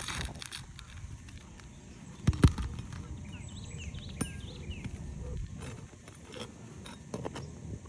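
Pry bar knocking sharply once against asphalt roof shingles about two seconds in, with smaller scrapes and a click as nails are worked out. A few faint bird chirps come in the middle.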